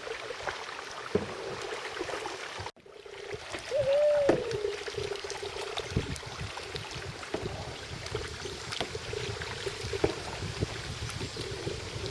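Water trickling and splashing around a kayak being paddled, with scattered paddle strokes. The sound cuts out for a moment a few seconds in, and a short wavering tone follows soon after.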